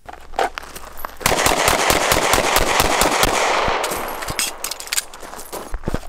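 SIG M18 9 mm service pistol fired in rapid strings of shots: quick firing starts about a second in, thins out to scattered shots around four seconds in, and picks up again near the end.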